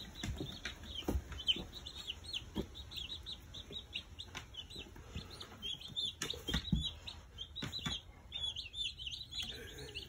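A brood of meat-bird chicks peeping continuously, many short high chirps overlapping, with a few soft thumps mixed in.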